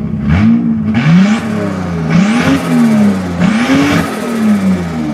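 Turbocharged RB30E+T straight-six free-revved in four quick blips, the pitch rising and falling each time, with a hissing rush over each rev.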